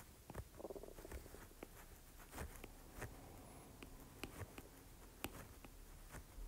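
Faint, irregular taps and clicks of a stylus writing on a tablet's glass screen, roughly two a second.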